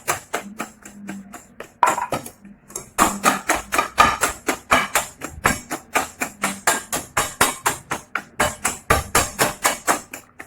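Whisk beating the egg, sugar and oil batter in a mixing bowl, clacking against the bowl about four times a second, with a brief pause early on.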